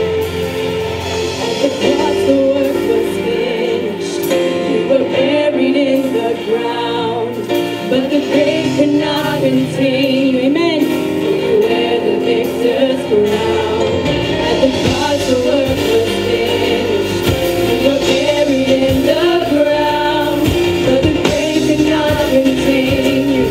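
Live gospel praise and worship song: women's voices singing into microphones over acoustic guitar, with the band's low end and percussion filling in from about halfway through.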